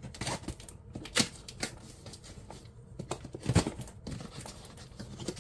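A long cardboard shipping box being shifted and handled: a series of knocks and scrapes of cardboard, the loudest about a second in and again about three and a half seconds in.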